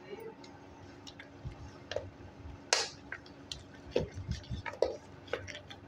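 Hand squeezing and rubbing creamed ghee with water in an aluminium pot, giving irregular wet squelches, drips and small splats, one louder splat near the middle. A faint steady hum lies underneath.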